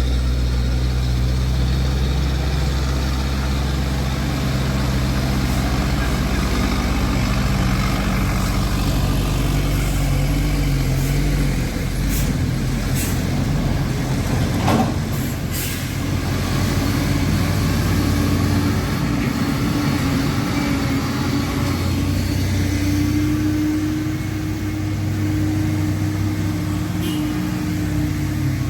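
Heavy truck's diesel engine running under load, its note shifting in pitch, with a few short air hisses about halfway through.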